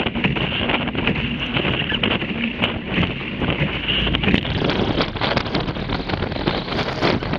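Strong wind buffeting the microphone together with water rushing and spray slapping against a Laser dinghy sailing fast through rough, choppy water, with many short splashing hits.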